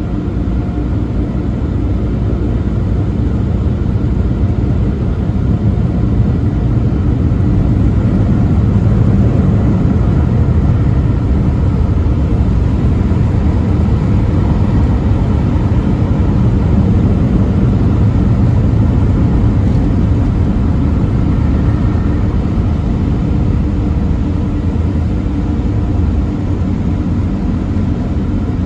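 Steady low roar of drive-through car-wash air dryers blowing on the car, heard from inside the car. It eases a little near the end as the car clears the exit.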